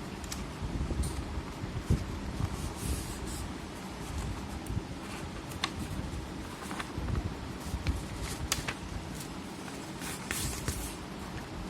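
Sheets of paper being folded in half and creased by hand: intermittent rustling with short sharp clicks and brief hissy swishes over a low handling rumble.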